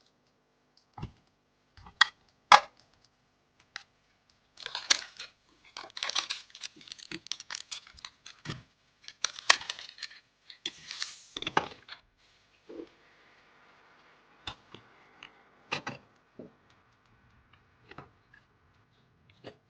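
Hands unboxing and handling PC components: packaging rustles, scrapes and tears for several seconds in the middle. Sharp clicks and taps come before and after.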